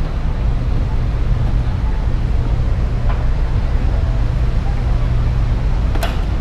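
Steady low rumble of a cruise ship's background noise, with a single sharp click near the end.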